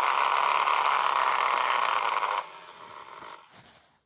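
LRS R8500 restaurant coaster pager's vibration motor buzzing, the pager's plastic case rattling on the wooden desk; the strong buzz drops about two and a half seconds in to a weaker one that dies away near the end. The buzz shows the pager working on its replacement cordless-phone battery.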